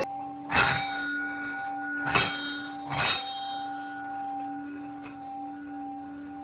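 Singing bowl struck three times in the first few seconds, its steady ringing tone lingering and slowly fading after each strike.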